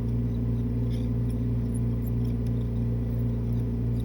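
A steady low hum of several even tones, with faint light ticks and scrapes of a hand instrument carving amalgam that is setting up and getting harder to carve.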